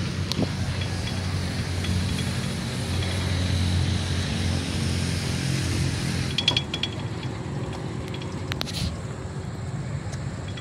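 Wind and handling rumble on a phone's microphone during an outdoor walk, with faint regular ticking. A cluster of clicks comes in past the middle, and a short sharp clatter follows near the end.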